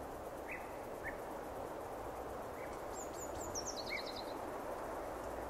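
Woodland ambience: a steady outdoor hiss, with a songbird singing one short phrase of high notes that slide downward into a quick run of repeated notes about three seconds in, and a few faint short chirps scattered through.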